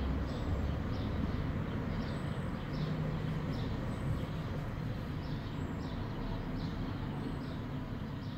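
Steady low background rumble with faint, short high chirps repeating every second or so, like small birds calling.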